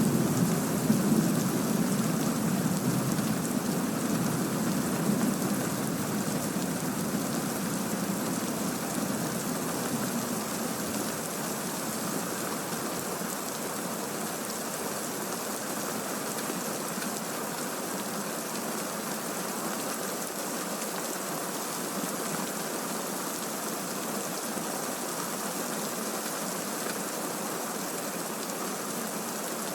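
Recorded thunderstorm: steady heavy rain hissing, with a low rolling rumble of thunder that fades away over the first several seconds.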